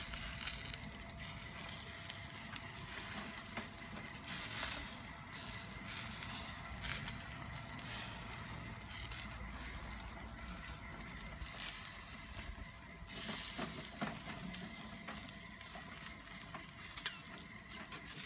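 Chicken wings on a rotisserie spit over hot charcoal, sizzling with frequent sharp crackles and pops.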